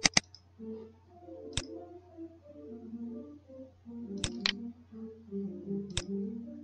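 Computer mouse clicking: a quick double click near the start, a single click, another close pair about four seconds in and a single click near the end. A faint tune of stepping notes runs softly underneath.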